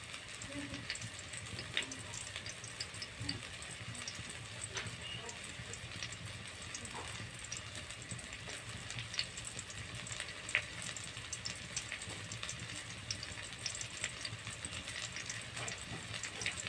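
Food frying: a steady sizzle with scattered crackles and pops, a couple of them louder, about two and ten seconds in.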